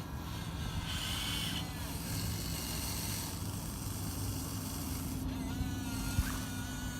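Huina 1580 RC excavator's electric motors and gearing whirring steadily as it digs. A higher whine comes in briefly about a second in, and another starts near the end.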